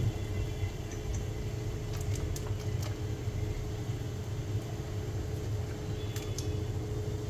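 Steady low kitchen rumble with a faint steady hum, from cooking on the stove, and a few light clicks of utensils.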